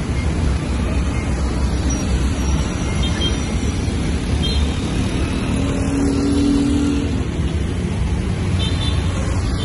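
Busy street traffic: a steady rumble of motorbike and car engines passing, with a brief low steady tone rising above it about six seconds in.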